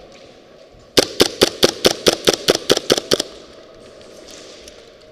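An airsoft gun firing a quick string of about eleven shots, about five a second, starting about a second in and stopping after about two seconds.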